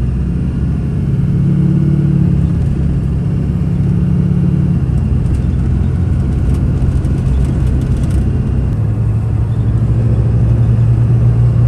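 The 6.6 L Duramax LLY turbo-diesel V8 of a 2005 GMC pickup pulls the truck under acceleration, going into boost easier on a newly replaced turbo boost control solenoid. Its note steps lower about five seconds in, then holds steady.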